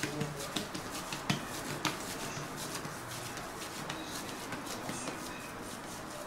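Soft clicks and pats of oiled hands squeezing and shaping a ball of cookie dough, a few in the first two seconds, over a steady hiss.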